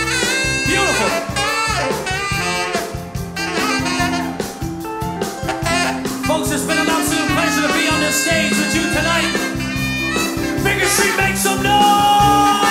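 Swing band playing an up-tempo number over a steady beat.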